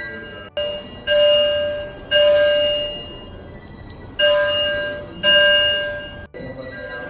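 Horn blasts on one steady chord: a brief blip, then two pairs of loud blasts about a second long each.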